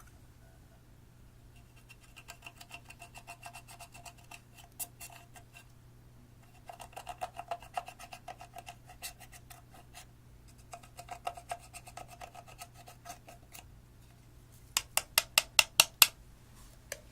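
Clear slime being worked in a container. There are runs of quick, small clicks and crackles, then a string of about seven louder pops in quick succession near the end.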